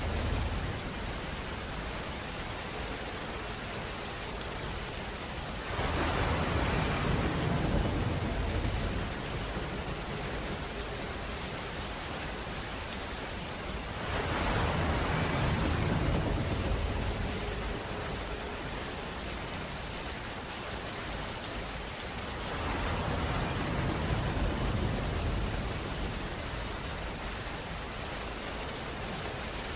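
Steady rainfall, an even hiss, that swells louder with a low rumble about every eight seconds.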